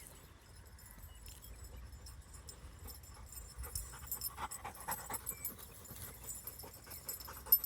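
Labrador retriever panting softly, in irregular puffs that grow a little stronger about four seconds in.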